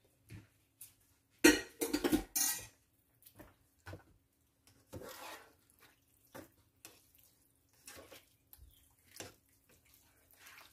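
Kitchen tongs scraping and knocking against a nonstick skillet while tossing beef and broccoli in sauce. A burst of clatter comes about one and a half seconds in, then lighter scattered knocks and scrapes.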